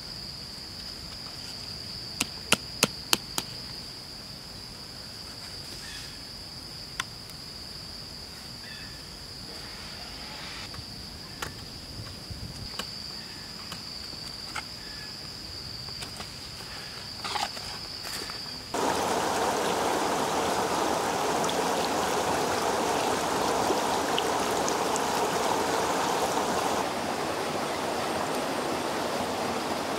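Steady high drone of insects, with a quick run of five sharp taps about two seconds in and a few light knocks as bamboo sticks are fitted into a wooden trap frame. About two-thirds of the way through it cuts abruptly to the louder rush and splash of a shallow stream running over rocks and hands.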